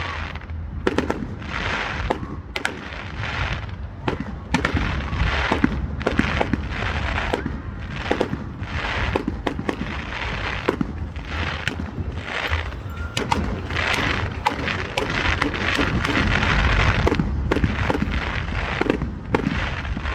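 Fireworks display going off: a steady run of sharp bangs and pops at irregular intervals over continuous crackling, with a denser stretch near the end.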